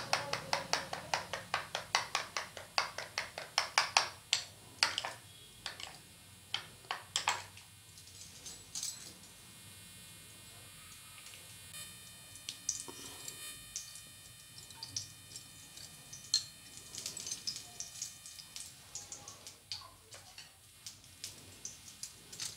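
Spoon striking the side of a small bowl while stirring a curd and spice mixture, about four quick strokes a second, slowing and stopping about seven seconds in. After that only faint scattered clicks of utensils.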